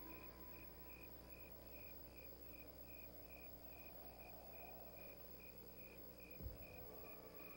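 A cricket chirping steadily and faintly, about two to three chirps a second, over a low steady hum. A single dull thump about six and a half seconds in.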